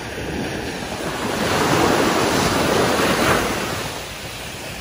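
Ocean surf on a beach: a wave breaks and washes in, the rush swelling through the middle and dying down about four seconds in, with wind buffeting the microphone underneath.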